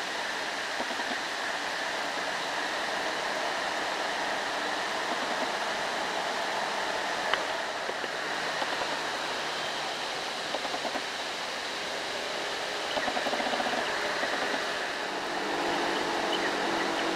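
Steady hiss of falling rain, with one sharp tick about seven seconds in and a low hum joining near the end.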